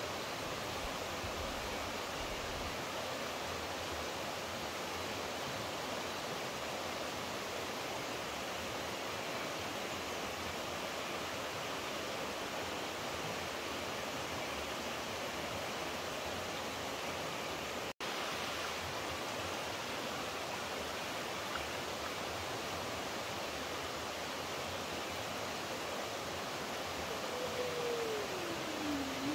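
Steady rushing of running water, a stream or small waterfall, as an even hiss. It drops out for an instant about two-thirds of the way through, and a short falling tone is heard near the end.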